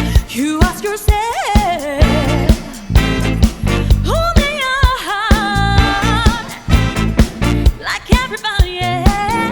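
Band music: a lead melody of gliding, wavering held notes over a steady bass and a regular drum beat.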